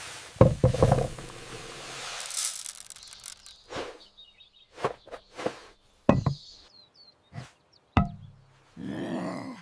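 A string of separate knocks and dull thuds at irregular intervals, with a quick cluster about half a second in and a short rustling burst near the end.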